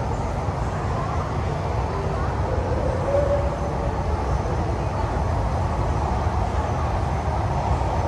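Steady rushing of an indoor waterfall feature, with a murmur of crowd voices over it.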